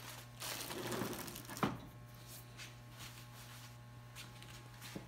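Rustling and crinkling as a tack rag and its plastic wrapper are handled, ending in a sharp tap about a second and a half in, over a steady low hum.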